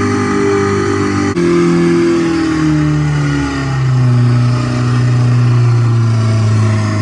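Simulated Ferrari 458 Italia engine sound from the XLR8 app played through a minivan's stereo speakers. The engine note drops suddenly about a second in, slides lower, steps down once more, then holds steady at a low idle-like pitch.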